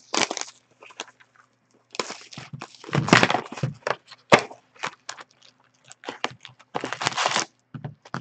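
Sealed box of hockey card packs being opened by hand: plastic wrap and cardboard torn, crinkled and handled in irregular rustling bursts, with one sharp snap about four seconds in.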